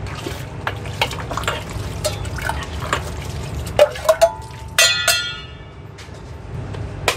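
A steel ladle scooping and pouring braised sauce over beef offal in a stainless-steel stockpot, with liquid splashes and light metal clinks. A few seconds in come several sharper clinks, then the ladle strikes the pot once with a ringing clang. A steady low hum runs underneath.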